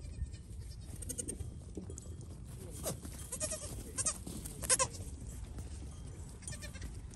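Goat kids bleating several times, short calls with the loudest in the middle, over a steady low rumble.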